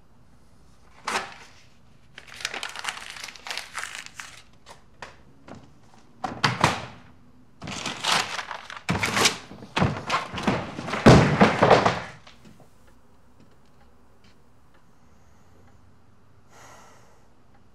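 Papers and clippings ripped off a wall: a quick series of tearing, rustling bursts over about ten seconds, with a heavier thud at the loudest point about eleven seconds in.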